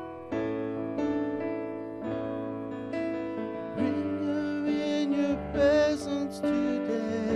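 A slow song on piano, with a voice singing with vibrato from about four seconds in.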